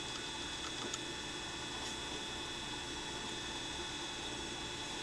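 Steady hum of a CNC mill-turn machine standing idle, with a fixed high-pitched tone over it. A couple of faint clicks come about one and two seconds in.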